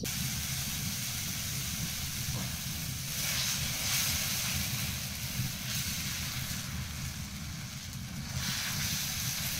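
Thin kodra-millet batter sizzling on a hot iron griddle over a wood fire as it is spread by hand, with a steady low rumble underneath. The hiss swells about three seconds in and again near the end.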